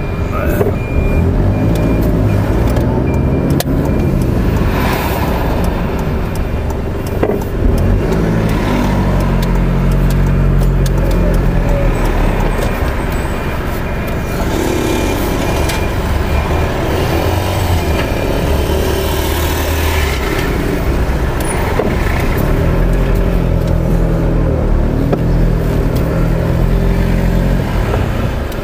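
Car engine and road noise heard from inside the cabin during slow town driving, a steady low rumble whose engine note rises and falls several times as the car pulls away and eases off.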